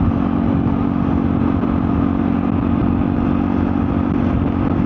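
Yamaha scooter's engine running at a steady cruise, a constant hum over a low rumble of wind and road noise.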